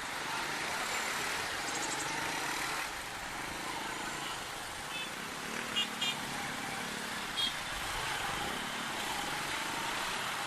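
Steady road traffic noise, with a few short high chirps about halfway through.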